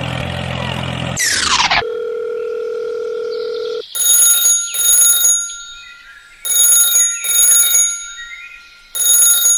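A steady engine hum that cuts off about a second in under a quick falling whoosh, then a held tone, then a telephone-style ring sounding in double rings, three times.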